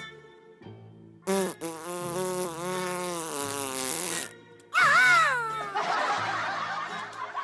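A long, buzzing comic fart sound effect starts about a second in and lasts about three seconds, then a wavering sliding cartoon tone and a hiss follow.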